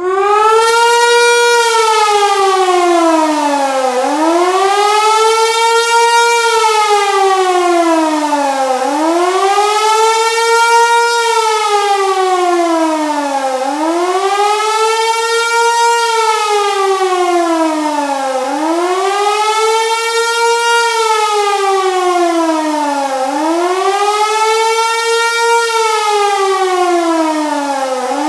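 Hörmann HLS 273 electronic siren sounding the German public-warning signal, a rising and falling wail. It comes up to full pitch at the very start, then sweeps down and back up about every five seconds.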